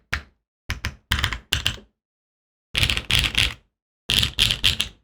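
Typing on a mechanical keyboard fitted with BSUN Kiki switches, a full aluminium plate and GMK Beta keycaps. The keystrokes come in three quick bursts of several keys each, with short silent pauses between them.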